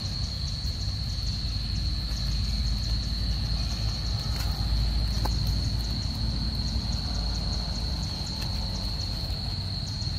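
Insects singing steadily in one high, even tone, with a quicker ticking chirp above it, over a constant low rumble. A couple of faint clicks come in the middle.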